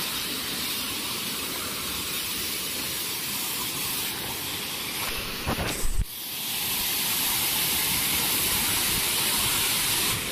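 Waterfall heard from inside the falls, the water pouring and splashing right onto the phone: a dense steady hiss of spray. About six seconds in it dips briefly with a couple of knocks, then comes back louder.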